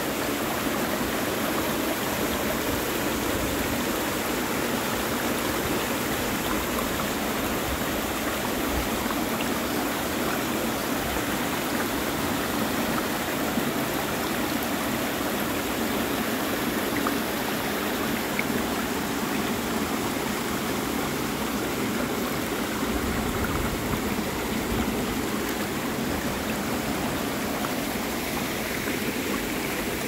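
A small mountain stream splashing and rushing down a short cascade through a narrow rock cleft, a steady, even sound of running water.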